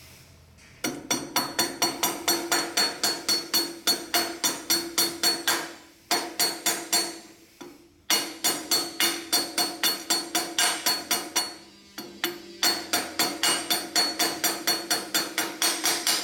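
Steel hammer striking a metal punch to drive a pin into the handle mount of a pallet jack, rapid metal-on-metal blows with a ringing tail, about four a second. The blows come in four runs separated by short pauses.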